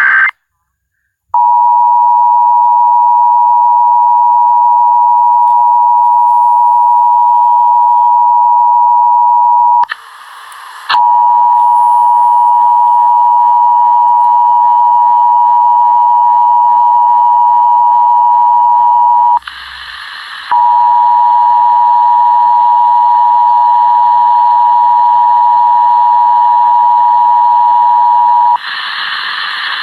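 Emergency Alert System attention signal: the loud, steady two-tone alert tone of a Required Monthly Test. It sounds in three long stretches of about eight seconds each, broken twice by short, higher, noisier bursts, and gives way to a noisy stretch near the end.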